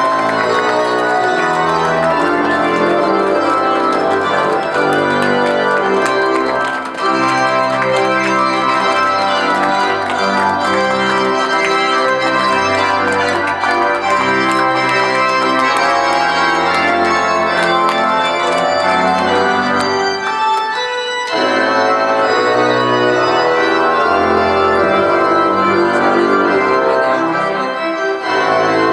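Organ music playing slow, held chords, with a short break about 21 seconds in.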